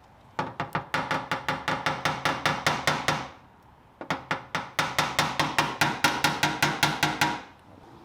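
Body hammer tapping rapidly on a car's sheet-metal fender, about seven light blows a second in two runs with a short pause between, each blow leaving the panel ringing: the dent and crease are being knocked out.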